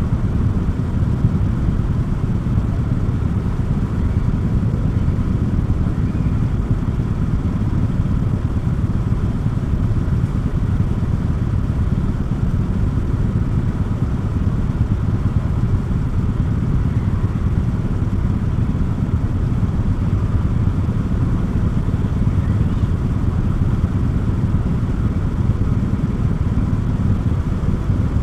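Steady low rumble of a motorcycle on the move, its engine noise mixed with wind and road noise, with a faint constant hum and no break or change.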